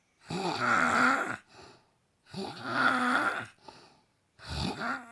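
A woman snoring: three loud snores about two seconds apart, each followed by a brief fainter sound.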